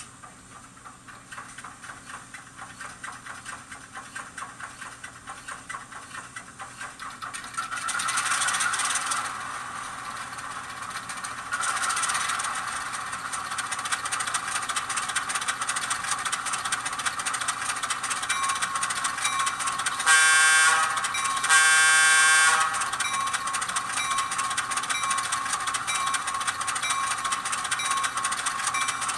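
Miniature diesel switcher sound from a LokSound decoder played through a tiny speaker, the engine starting up. Rhythmic chugging grows louder over the first several seconds and surges about 8 and 12 seconds in, then settles into a steady run. Two horn blasts sound about 20 and 22 seconds in.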